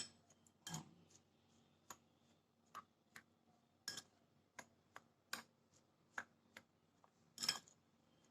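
Faint, irregular light clicks and taps of a spoon against a bowl as a dry spice rub is stirred.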